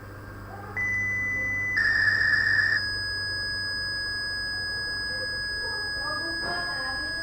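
Electronic tones from an Arduino-driven siren circuit, steady in pitch rather than sweeping. A high beep starts about a second in and gives way a second later to a louder, rougher tone, which then settles into one steady held tone.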